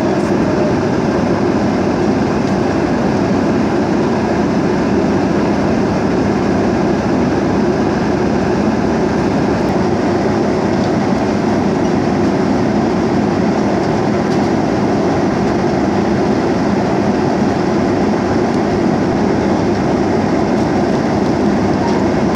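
Steady, loud cabin noise inside an airliner in flight: the even noise of the engines and rushing air, unchanging throughout.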